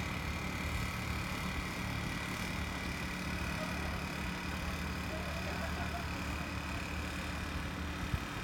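An engine running steadily: a low, even hum with a faint high whine over it.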